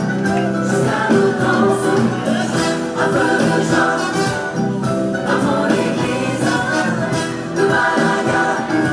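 Music with group singing and instrumental accompaniment, in a gospel or Christian worship style.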